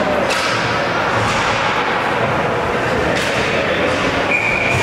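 Ice hockey play in a rink: sharp scrapes and knocks of skates, sticks and puck over a steady din of voices, with a steady high tone near the end.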